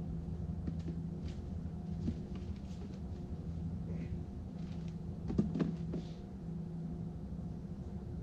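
A steady low machinery hum with a few overtones, under scattered rustles and small clicks from gloved hands handling something, the loudest cluster about five and a half seconds in.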